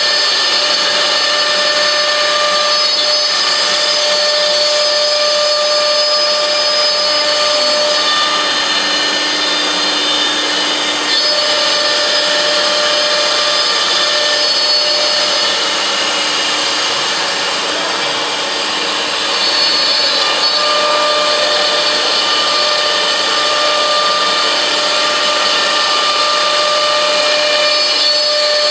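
CNC router spindle running and cutting: loud steady machining noise with a high, steady whine whose pitch lines drop out and return every few seconds as the cut changes.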